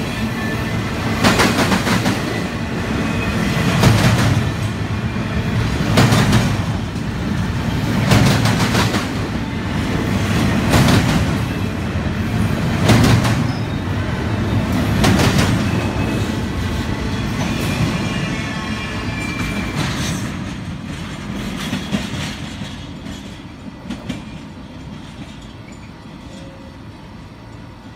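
Freight cars of a Union Pacific intermodal stack train rolling past: a steady rumble with wheel clacks recurring about every two seconds. The sound fades away over the last several seconds as the end of the train passes and recedes.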